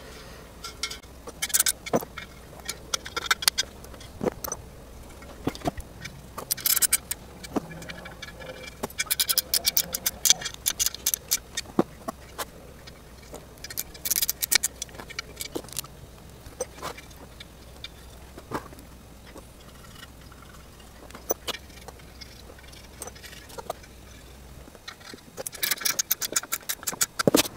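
Metal bolts and hand tools clinking and tapping against engine parts, with short runs of rapid metallic clicks, several of them close together near the end.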